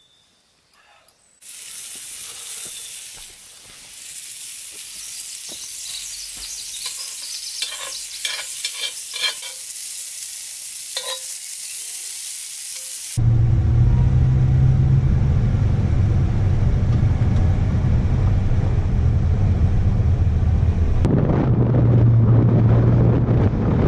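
Eggs and sausages sizzling in a skillet over a campfire, with a utensil scraping and tapping in the pan several times. About thirteen seconds in it cuts suddenly to a car driving: a steady, louder engine and road drone with wind rush.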